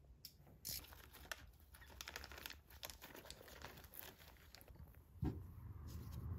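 Faint clicking and crinkling from small fuel-injector parts being handled with pliers and nitrile-gloved hands, with a dull knock about five seconds in.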